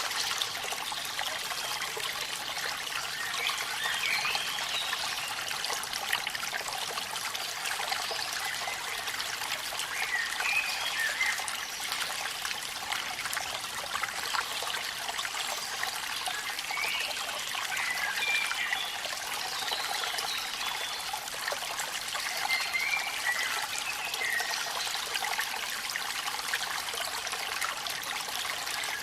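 Waterfall water trickling and splashing steadily, with short higher gurgles now and then.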